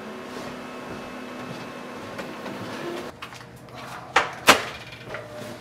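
Office copier running with a steady hum that stops about three seconds in, followed by two sharp knocks a moment apart as its scanner lid is handled.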